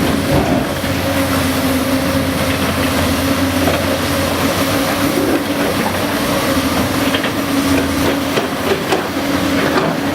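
Caterpillar 385BL excavator running steadily under working load while digging, its diesel engine and hydraulics giving a constant hum with a held whine over it. A few sharp knocks and clanks come in during the second half.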